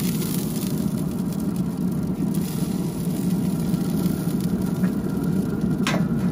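Steady low rumble of a pellet smoker's fire and fan running with the lid open, with a brief sharp click near the end.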